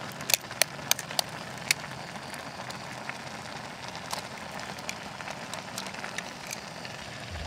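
A steel spoon tapping an egg's shell, about five sharp clicks in the first two seconds, then a few fainter ones as the shell is cracked open into the pot. Beneath them is the steady low sound of the noodle pot cooking on a portable stove.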